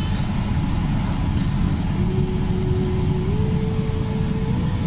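Car interior noise while driving: a steady low rumble of engine and tyres on the road, with a faint thin whine that steps up in pitch a couple of times in the second half.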